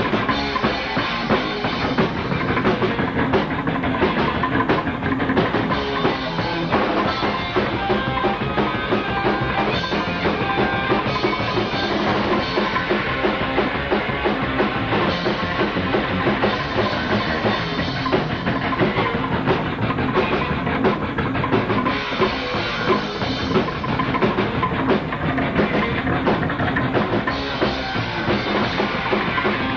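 Psychobilly band playing live: drum kit and upright double bass driving a fast rock beat.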